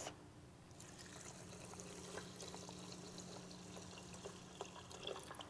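Broth poured from a glass pitcher onto rice and vegetables in a pressure cooker's inner pot: a faint, steady pouring.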